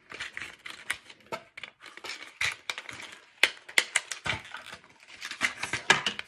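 Plastic press-on false nails clicking and rattling in their clear plastic packaging as the packs are handled and opened: an irregular string of sharp little clicks and crinkles.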